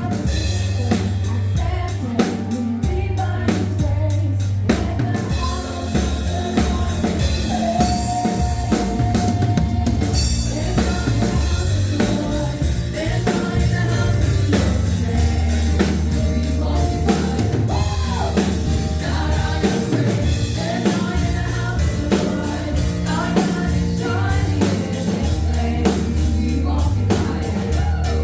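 Gospel music: voices singing over a band, with a drum kit keeping a steady beat.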